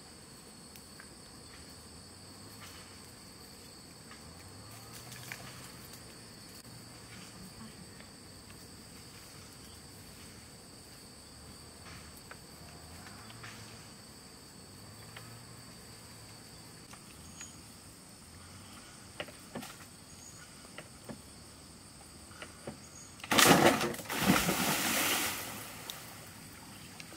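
Insects chirping steadily with a few faint knocks and crackles, then near the end a person jumps into a stream: a loud splash followed by a couple of seconds of water sloshing.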